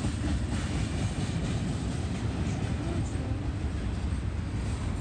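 Freight train of container cars rolling past: steady noise of steel wheels on the rails.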